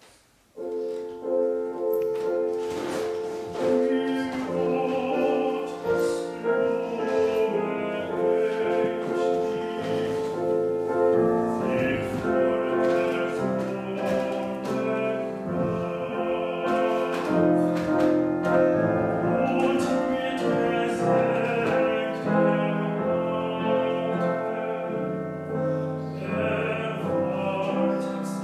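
A young male classical singer sings an art song with piano accompaniment. The piano comes in about half a second in.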